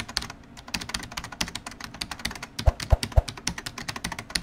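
Rapid, irregular small clicks and taps, with three low thumps in quick succession a little past halfway.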